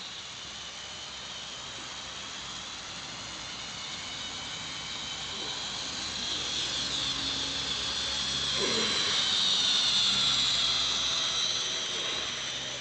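OO gauge model train, a Class 56 locomotive hauling a rake of oil tank wagons, running along the track with a high-pitched whine of motor and wheels on rails. It grows louder as the train approaches, is loudest about ten seconds in, then eases off.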